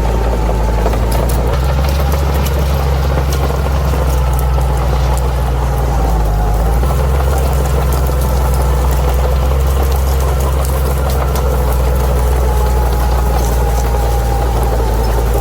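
Bulldozer's diesel engine running steadily under work, its low note shifting slightly twice, with scattered light clicks over it.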